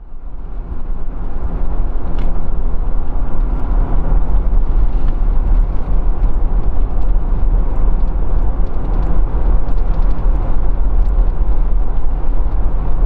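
A vehicle running steadily: a loud, even low rumble with scattered light clicks and rattles.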